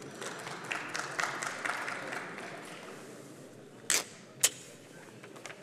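The low background of a large hall: for the first few seconds a soft spell of scattered clicks and rustle, then two sharp knocks about four seconds in, half a second apart.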